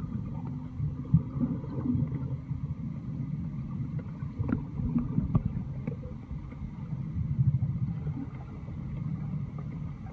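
Muffled low rumble of water moving around an iPhone held underwater while snorkeling, with scattered short clicks and knocks, the sharpest about a second in.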